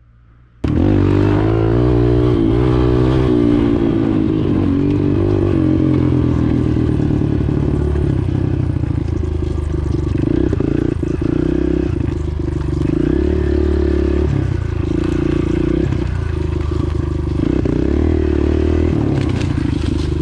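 Kawasaki KLX pit bike's small single-cylinder four-stroke engine, heard from on board the bike, revving up and down as it is ridden through the turns of a dirt track. It starts abruptly about half a second in.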